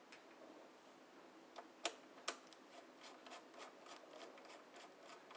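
Faint clicking of a small screwdriver turning out the screws that hold a projector's mainboard: two sharper clicks about two seconds in, then a quick run of soft ticks.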